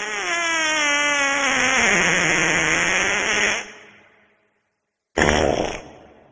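Fart sound effects. A long, pitched fart runs on, drops in pitch about halfway through and fades out. After a short silence a brief, rougher fart comes about five seconds in.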